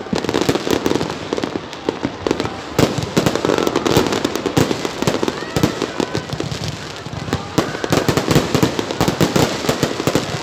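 Aerial fireworks shells bursting overhead in quick succession: a dense run of sharp bangs and crackles with no let-up.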